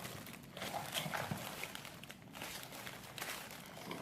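Plastic toy packaging rustling and crinkling faintly as a child pulls at it, trying to tear it open.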